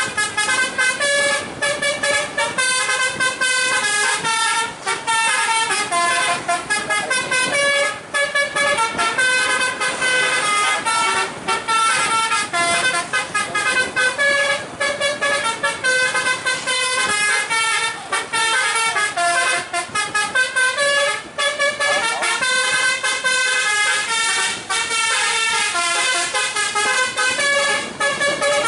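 Telolet basuri musical horn on a Marita bus playing a running melody, its notes stepping up and down every fraction of a second, with a few short breaks between phrases.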